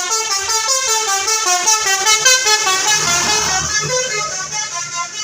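Indonesian bus telolet horn playing a fast run of musical notes, starting suddenly and loudly.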